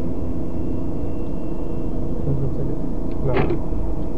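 Steady low rumble of a car on the move, engine and road noise, with one brief higher sound about three seconds in.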